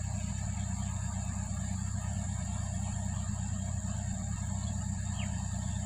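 Backhoe loader's diesel engine running steadily at low speed, a low even rumble with no revving.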